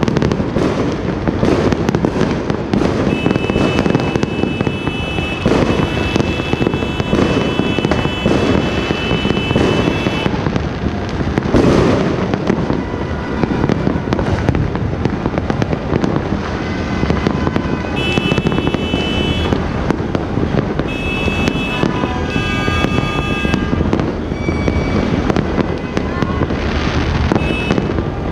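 Many fireworks and firecrackers going off at once across a neighbourhood: a dense, unbroken crackle and popping. Steady high-pitched tones sound over it for a few seconds at a time, several times.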